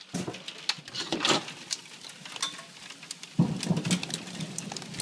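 Hail and rain pattering outside, many scattered light ticks. About three and a half seconds in, a low rumble sets in under the patter.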